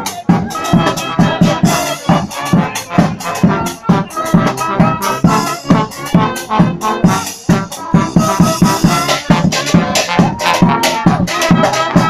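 Live funky brass band playing an up-tempo number: horns over a steady, evenly spaced drum beat.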